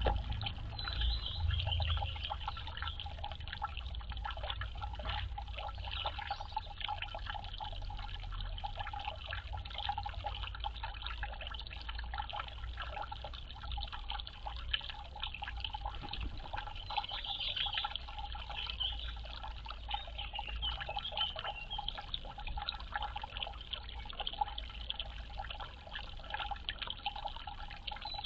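Water trickling and pouring with a steady patter of drips.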